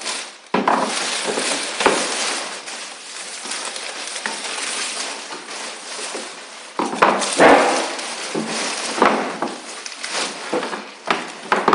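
Wooden beehive parts and hardware being handled during assembly: scraping and shuffling with a series of knocks and clinks, the loudest about seven seconds in.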